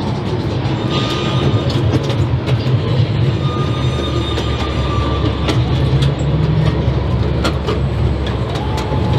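Miniature railway train rolling along the track, heard from the riding cars: a steady low rumble with scattered sharp clacks of the wheels over the rails.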